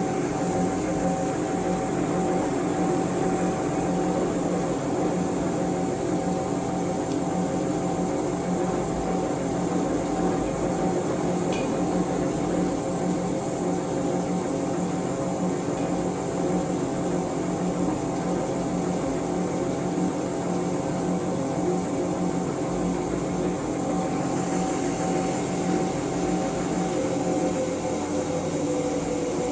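Large coin-operated washing machine running with a steady mechanical hum.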